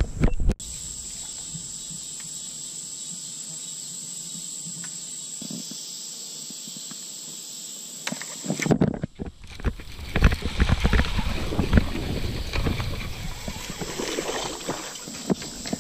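Steady high buzz of insects from the creek banks for the first half. After a brief break, irregular knocks, rustles and water splashes take over: a baitcasting rod and reel being worked from the boat while a bass strikes at the surface.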